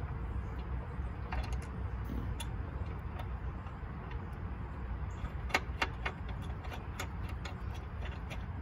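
Scattered light metallic clicks and taps from hands working a brake line fitting at the wheel, with a cluster of sharper clicks about five to seven seconds in, over a steady low rumble.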